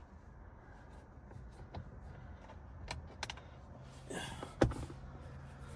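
Scattered light clicks and handling noise from work on the steering column trim and fasteners, with one sharp click about four and a half seconds in, over a low steady hum.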